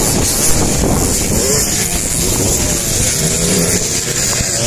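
Two-stroke motocross dirt bike engines revving on a dirt track, their pitch rising and falling as the riders work the throttle.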